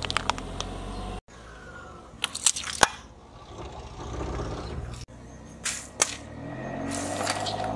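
Car tyre rolling over small plastic and cardboard objects, crushing them in a few quick clusters of sharp cracks and crunches, with the low steady hum of the car's engine underneath. The sound drops out abruptly twice where one crushing clip cuts to the next.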